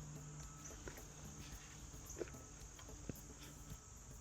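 Faint, steady high-pitched trilling of insects such as crickets, with a few faint light clicks.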